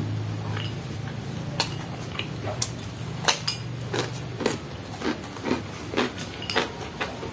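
Close-up eating sounds: chewing and mouth smacks, settling into about two smacks a second in the second half, with scattered sharp clicks as fingers pick food off a plate. A low steady hum runs underneath.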